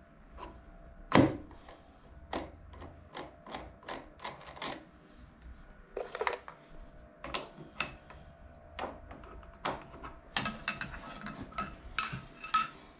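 Metal tooling being handled at a milling machine's spindle nose: scattered clicks and knocks, with one heavier knock about a second in and a run of sharper metallic clinks near the end.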